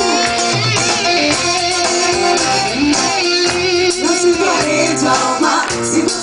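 Music: a song with plucked guitar and a steady bass line, with singing.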